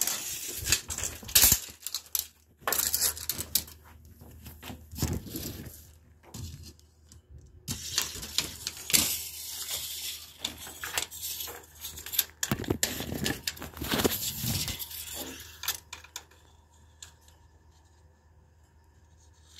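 Handling noise from a steel tape measure held against PVC drain pipe while the phone is moved about: irregular scraping, rattling and clicking with short quiet gaps, dying away to near quiet in the last few seconds.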